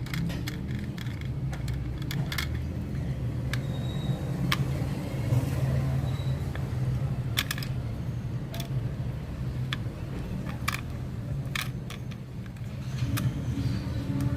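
Scattered small metallic clicks and clinks as a stiff recoil spring is worked back into a pocket bike's pull-starter housing, over a steady low hum.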